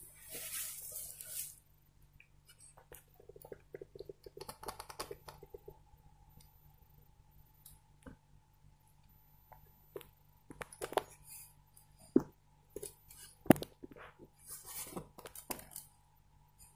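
Plastic body of a 32-inch Sony LED TV being handled as it is taken off its stand and laid face down: rustling at first, then scattered clicks and knocks, the sharpest about 13 seconds in.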